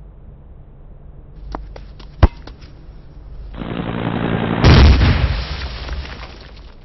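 A few sharp clicks, then a rushing noise that swells into a loud boom nearly five seconds in and fades away over about two seconds.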